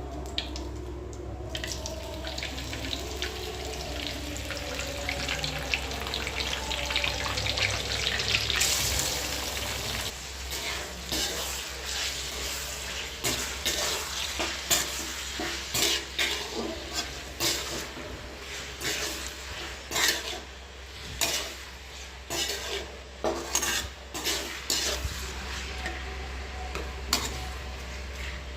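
Chicken frying in a pan, sizzling, with a spatula stirring and scraping against the metal. The sizzle builds to its loudest about eight seconds in, then irregular clanks and scrapes of stirring come to the fore.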